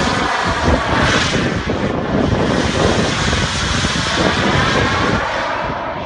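Turbine engine of a CARF-Models J-10 radio-controlled jet in flight: a loud, continuous rushing hiss whose tone sweeps and shifts as the model moves about. It eases off slightly near the end.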